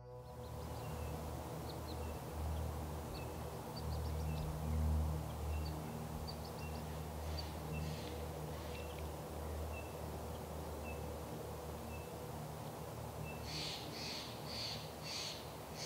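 Outdoor ambience of a low wind rumble with a small bird chirping over and over. Near the end a bird gives a run of louder calls, about two a second.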